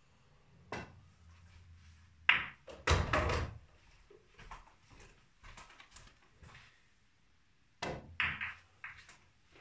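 Snooker balls on a pool table. The cue tip clicks against the cue ball, a sharp ball-on-ball crack follows about a second and a half later, then a heavy thud and short rumble as a ball drops into a pocket. Near the end the next shot brings another cue click and a few quick ball clacks.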